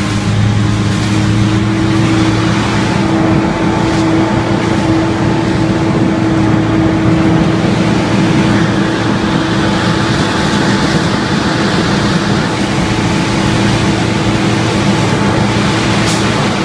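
A large engine running steadily: a constant low hum with a rush of noise over it, unchanging throughout.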